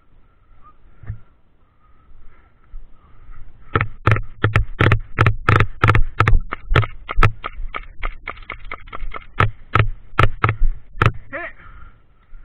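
Airsoft guns firing: a long run of sharp, irregular shots, some in quick succession, starting about four seconds in and stopping about a second before the end.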